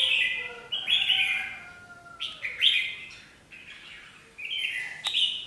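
Red-whiskered bulbuls calling in repeated short, harsh bursts about once a second: aggressive calling between a caged decoy bulbul and a rival pair. A single sharp click sounds about five seconds in.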